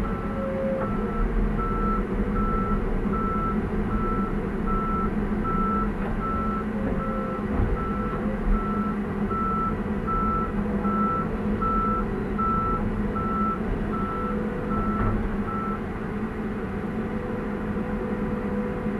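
A backup alarm beeping steadily at one pitch, stopping about three-quarters of the way through, over the steady running of an excavator's diesel engine heard from inside the cab.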